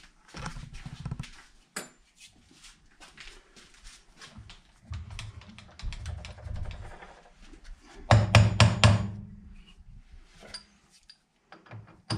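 Metal clicks and knocks as a crankshaft is clamped in a milling-machine vise. About eight seconds in comes a quick run of half a dozen sharp knocks, a mallet tapping the crank down to seat it flat in the vise.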